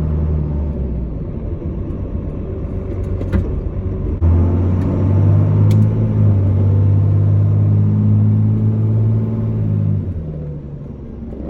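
1997 Dodge Ram's 5.9-litre 12-valve Cummins inline-six diesel, straight-piped, running as the truck drives. About four seconds in it suddenly gets louder under throttle, holds there while climbing slightly in pitch, and eases off near ten seconds.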